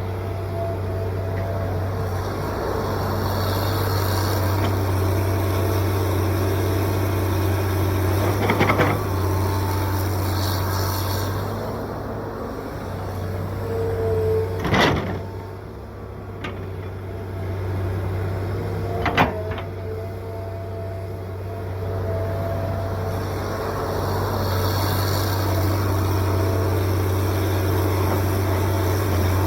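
John Deere 790ELC excavator's diesel engine running steadily under working load, easing off for a while in the middle, with three sharp knocks spread through it.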